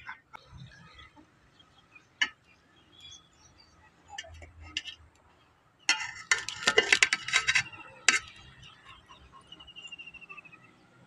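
Slotted steel spoon clinking and scraping against a steel cooking pot as rice is stirred and served: a single knock about two seconds in, a fast run of clinks in the middle, then one more knock.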